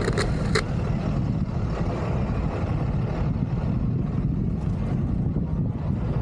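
Wind buffeting the microphone as a steady low rumble, with two short clicks in the first second.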